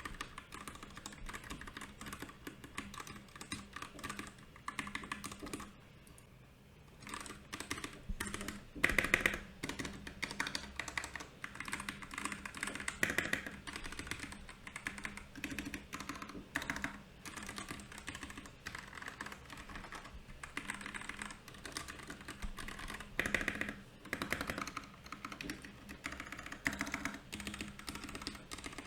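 Typing on a Royal Kludge RK68 mechanical keyboard with brown and milky yellow switches: a continuous run of rapid key clicks, pausing briefly about six seconds in, with a few louder flurries of keystrokes about nine seconds in and again near the end.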